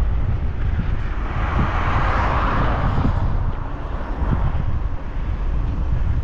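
Wind rumbling on the microphone of a moving bicycle, with a passing vehicle's tyre and engine noise swelling and fading about one to three seconds in.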